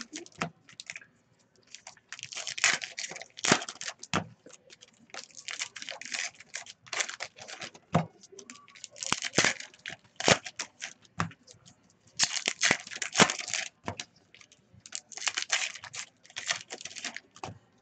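Foil trading-card packs being torn open and crinkled by hand, in repeated irregular bursts of tearing and crackling with sharp clicks between.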